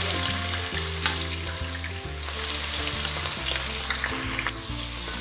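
Sliced onions frying in hot mustard oil in a steel pot: a steady sizzle with scattered crackles.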